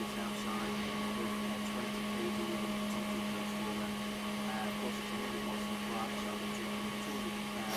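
A steady electrical hum, one low tone held evenly throughout, with a faint whir and a few small ticks over it.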